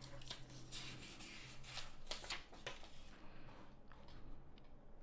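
Faint rustling and a few clicks, like small handling noises, with a low steady hum that stops about two seconds in.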